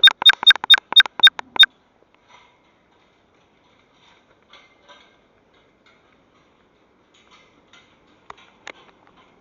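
A quick, slightly uneven run of about eight sharp, ringing ticks or clicks in the first second and a half, then near quiet with a couple of faint ticks near the end.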